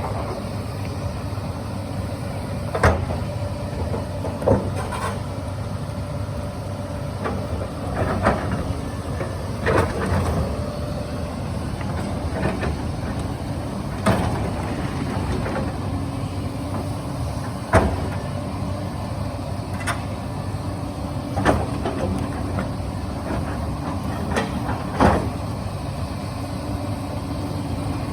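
Hyundai 220 excavator's diesel engine running steadily under load, with about eight sharp knocks every few seconds as the bucket strikes and turns over boulders.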